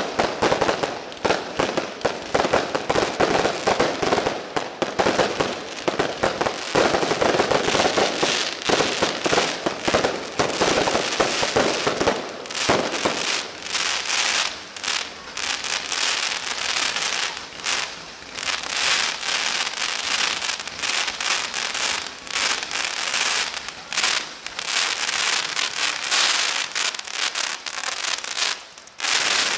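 Fireworks crackling and popping in a dense, rapid, unbroken string of small bangs.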